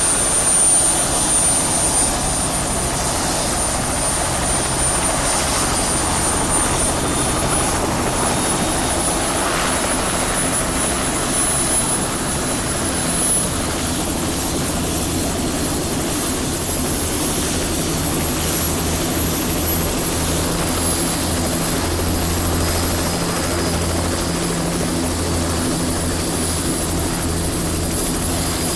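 Helicopter running steadily, with a low pulsing rotor beat and a thin high whine that rises slightly in pitch about a third of the way in.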